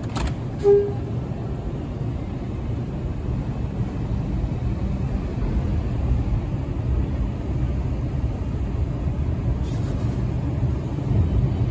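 Steady low rumble of a New York City subway train running through the station, with a brief squeak about a second in.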